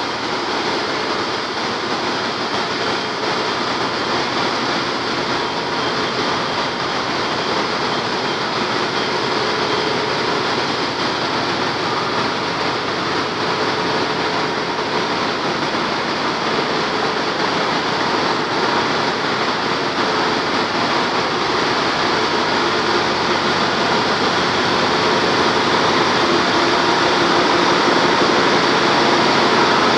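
Steady, loud din of a ship's engine room with machinery running, a dense even noise with faint steady hums through it, growing a little louder in the last few seconds.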